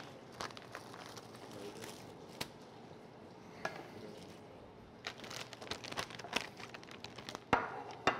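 Handling sounds at a kitchen counter as rotis and utensils are moved about: scattered light taps and clicks, a stretch of rustling a little past halfway, and a sharper knock near the end.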